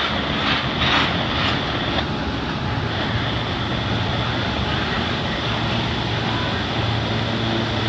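Double-stack intermodal container cars of a CN freight train rolling by slowly, a steady rumble of steel wheels on rail, with a few sharp clicks in the first two seconds. The train is slowing to a stop.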